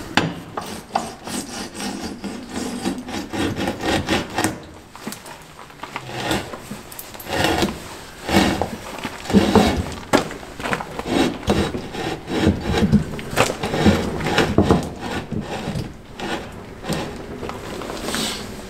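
Irregular scraping and rubbing strokes with short knocks, as a sailboat's propeller shaft is worked back out through its stern tube.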